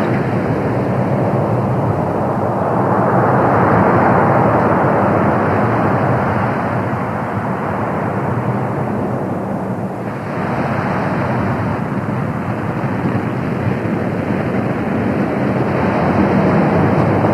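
Steady rushing of wind and sea. It swells a few seconds in, eases about ten seconds in, then rises again near the end.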